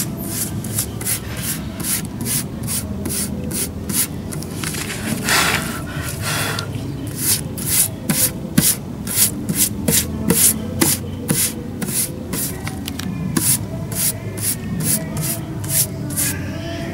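Hands brushing over a sheet of paper stained with crushed hibiscus petals, sweeping off the leftover petal bits: a dry rubbing swish repeated about three times a second.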